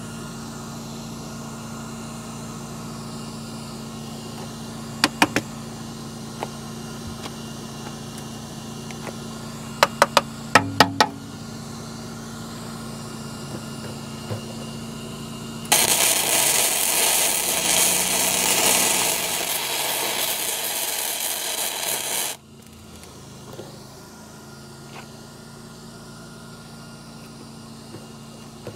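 MIG welder arc crackling and hissing steadily for about six seconds as a bead is laid on a steel weld plate, then cutting off abruptly. A few short sharp clicks come earlier, over a steady low hum.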